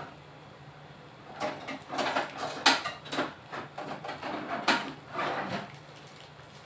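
A run of irregular knocks, clicks and scrapes from kitchen things being handled off to the side of the wok, starting about a second and a half in and stopping near the end, over a faint low hum.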